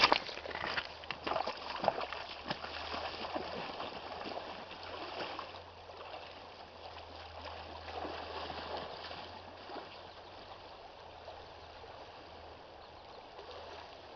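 Shallow river flowing over a cobble bed: a steady rush of water with gurgles. A few sharp clicks come in the first two seconds.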